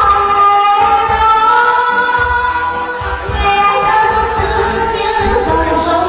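A woman singing into a handheld microphone over a backing track, holding long notes above a low, steady beat.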